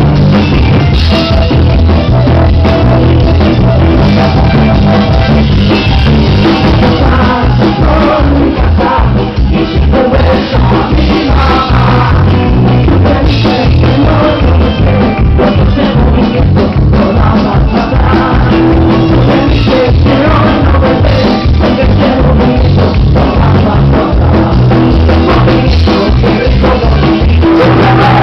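Ska band playing live, loud, with a regular drum beat running through.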